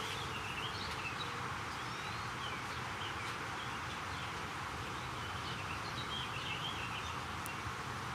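Small birds chirping in short, scattered calls over a steady background hiss of outdoor ambience.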